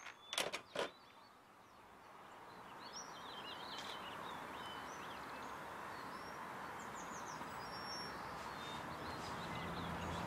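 Sharp plastic clacks as a desk telephone handset is put down on its cradle. Then steady outdoor background noise, with small birds chirping now and then.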